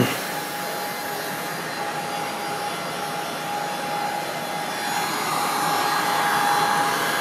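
Handheld electric heat gun running: a steady fan rush with a thin whine, getting louder about five seconds in as it is worked close to the car's rear light. It is warming the trim so 3M adhesive tape will stick. A brief knock at the very start.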